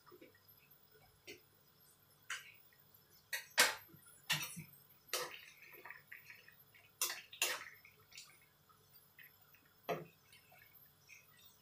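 Metal spoon clinking and scraping against a stainless steel frying pan while stirring a liquid soup, with soft liquid sounds. The clinks come irregularly, bunched in the middle and with one more about ten seconds in.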